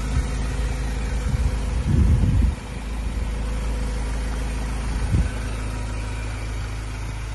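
Ford Ranger pickup's diesel engine idling steadily, with brief louder low rumbles about two seconds in and again about five seconds in.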